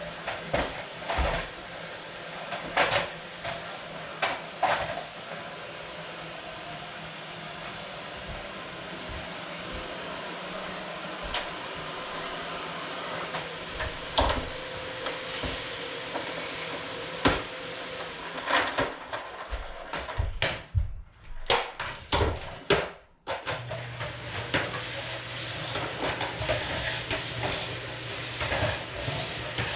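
Household cleaning sounds: a steady hiss with scattered knocks and clatter of things being handled. About two-thirds of the way through it drops out briefly, then returns with a low steady hum underneath.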